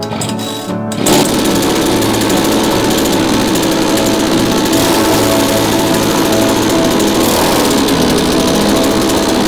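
A 3.5 hp single-cylinder two-stroke chainsaw engine powering a longboard, cutting in suddenly about a second in and running steadily at high revs, with music underneath.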